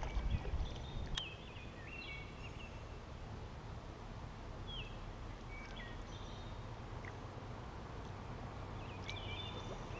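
Birds calling in short chirps now and then, over a low steady rumble; a single sharp click about a second in.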